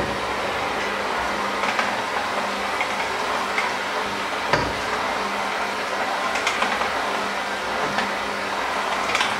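Electric hand mixer running steadily, its beaters churning a thick mixture in a stainless-steel bowl, with a few sharp clicks as the beaters knock the bowl's side.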